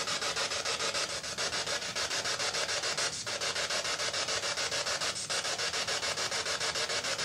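Spirit box sweeping through radio stations: a rasping static hiss chopped into rapid, even pulses, about five or six a second.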